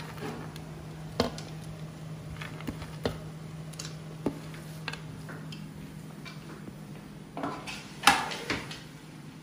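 A spatula scraping through rice and knocking against a non-stick cooking pot, with scattered sharp clacks, the loudest about eight seconds in. A steady low hum runs underneath.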